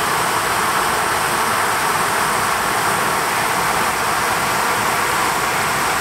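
Large waterfall in heavy flow: a steady, even rush of falling water.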